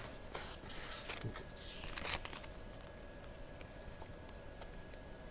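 Light rustling and soft clicks of a cardboard box and paper card being handled as the box flap is opened and a card is pulled out, with a slightly louder rustle about two seconds in.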